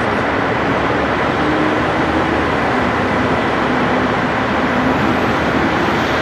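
Steady roar of freeway traffic, with a faint engine hum in the middle.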